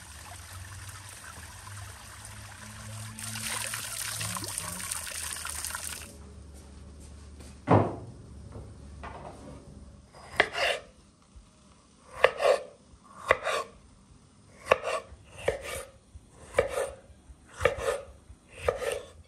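Flowing water that stops abruptly about six seconds in, then a single sharp knock. After that comes a rhythmic run of about a dozen short strokes, roughly one a second, of a knife chopping food on a board.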